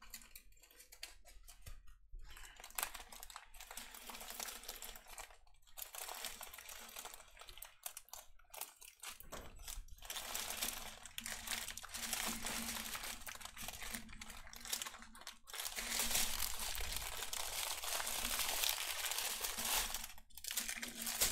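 Small plastic bags of diamond-painting drills crinkling and rustling as they are handled and sorted, with little clicks. It gets busier and louder about halfway through.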